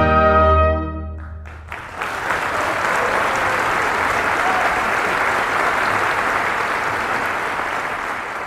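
An orchestra with solo trumpet holds a final chord that cuts off about a second in and rings briefly in the hall. About two seconds in, the audience breaks into steady applause.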